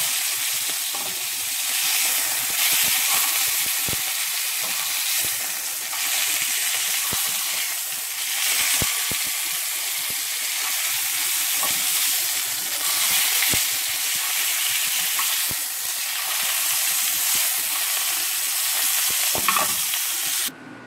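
Beef filet searing in hot oil in a frying pan: a steady sizzle, with a few faint clicks. The sizzle stops abruptly near the end.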